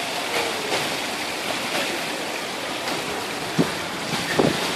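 Steady rushing of pool water, with a few short splashes near the end as a toddler dips a plastic bucket into the water.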